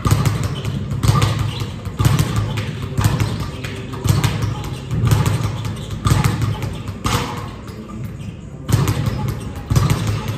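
Repeated dull thumps, roughly one a second, with a short pause about three quarters of the way through.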